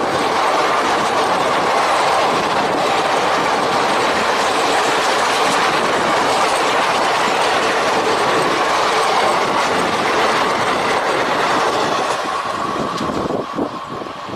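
Indian Railways ICF-type passenger coaches running past at close range, a steady loud rush of wheels clattering on the rails. About twelve seconds in the sound drops and turns uneven.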